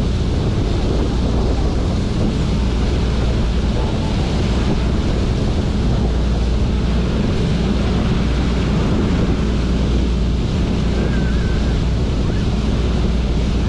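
Sightseeing ship under way: a steady low drone of its engines under the rushing wash of the wake churning astern, with wind buffeting the microphone.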